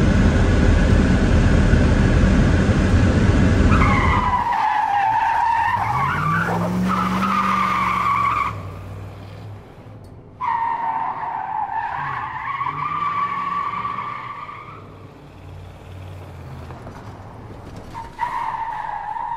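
Car tyres squealing in long, wavering skids, three times, with an engine revving up and down underneath. Before the first skid there is a loud, dense roar lasting about four seconds.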